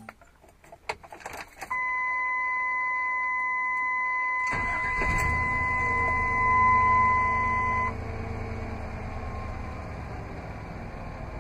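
Keys clicking in the ignition, then a steady dashboard warning tone sounds for about six seconds after the key is switched on. About four and a half seconds in, the Vortec 5.7-litre (350 cu in) L31 V8 cranks and starts, runs up briefly, and settles to a steady idle.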